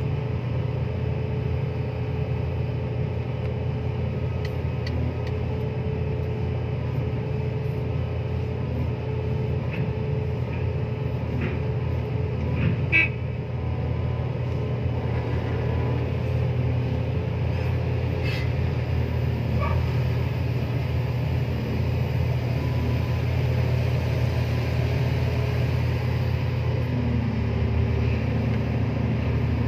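Komatsu excavator's diesel engine and hydraulics working a clamshell grab, a steady low drone with a held mid-pitched whine. A short knock about halfway through.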